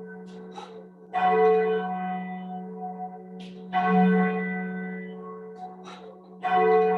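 Church bell tolling slowly: three single strokes about two and a half seconds apart, each ringing on and fading over a steady low hum before the next. It is a memorial toll, one stroke for each week of the past year.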